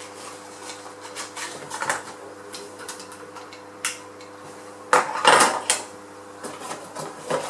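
Small plastic alarm-kit parts being handled and set down on a hard surface: scattered light clicks and knocks, with a louder cluster of clattering about five seconds in, over a faint steady hum.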